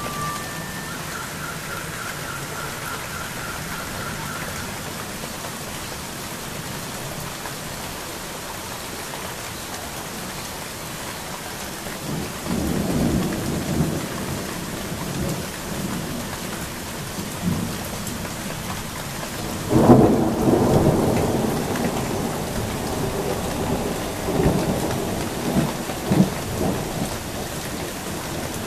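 Steady rain with thunder. Rumbling starts about twelve seconds in, and about two-thirds of the way through a sharp, louder clap sets off a long rolling rumble, followed by a few more swells.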